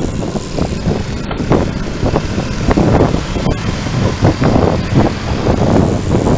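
Wind buffeting the microphone of a camera on a moving road bike's handlebars, a loud, irregular rush with rough gusts, over the hum of tyres on asphalt.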